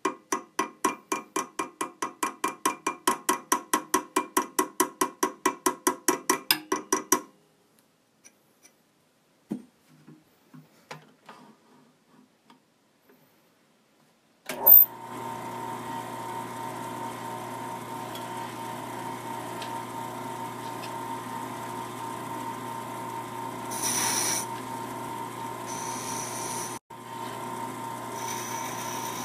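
Rapid, even tapping about five times a second for the first seven seconds, then near quiet with a few light knocks. About halfway through, a small woodturning lathe switches on and runs steadily while a hand tool rubs against the spinning rosewood piece, louder for a moment near the end.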